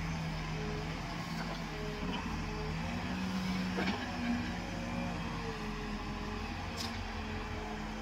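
Escorts Digmax backhoe loader's diesel engine running under hydraulic load as the backhoe arm digs into soil and lifts a full bucket. The engine note rises somewhat about three to four seconds in, with a couple of sharp clicks from the working machine.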